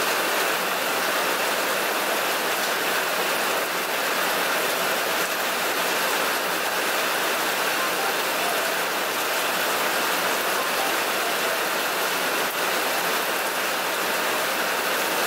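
Rain falling steadily on open pond water, an even hiss with no breaks.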